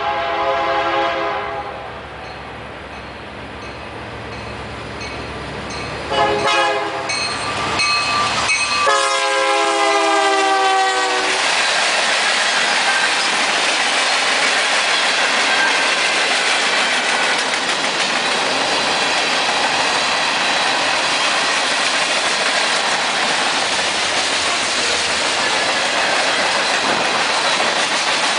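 Union Pacific freight locomotive horn sounding a chord at the start, a short blast about six seconds in and a long blast from about nine seconds that falls in pitch as the locomotive passes. Under the horn the locomotive's engine rumble grows louder. After that comes the steady rolling rumble and clatter of the freight cars going by.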